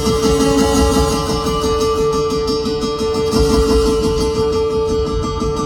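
Background music: a guitar-led track with an even strummed rhythm under one held note.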